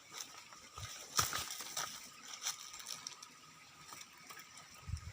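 Night insects droning steadily on a couple of high pitches, with scattered sharp clicks and crackles.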